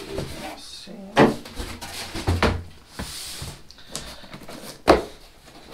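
A product box and its packaging being handled and opened: several light knocks, the sharpest near the end, and a brief sliding rustle about three seconds in.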